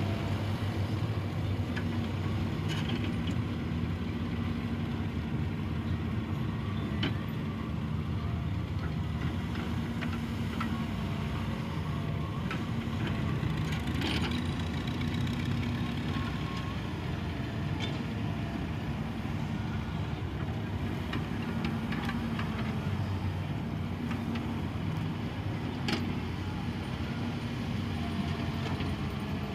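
Diesel engine of a wheeled excavator running steadily under load while it digs and loads sand, with a few sharp clanks here and there.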